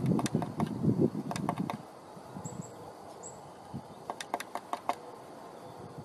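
Birds at close range: a loud low rustling with sharp clicks for the first two seconds, then scattered clicking calls and two brief high chirps.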